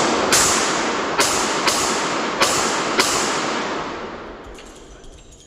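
Handgun shots: five sharp reports, unevenly spaced over about three seconds, over a loud hissing wash that fades out about four and a half seconds in.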